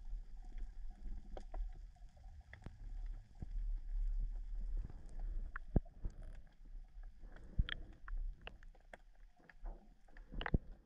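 Low rumble of water moving against an underwater camera's housing, with scattered sharp clicks and a few louder knocks, the loudest near the end.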